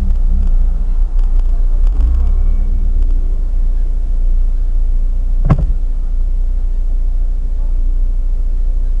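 Steady low rumble of a car heard from inside its cabin, with one sharp knock about five and a half seconds in.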